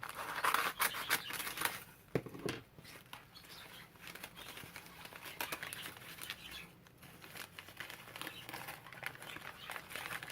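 Packaging crinkling, rustling and tearing as a wrapped plant is unwrapped by hand, loudest in the first couple of seconds.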